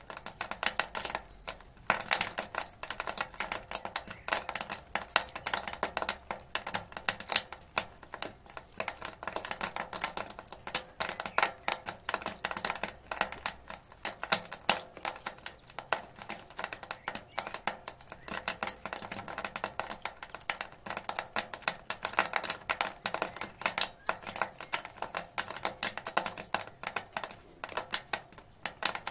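Rainwater dripping from a gutter onto the ground: a rapid, irregular patter of drops, with louder single splats now and then.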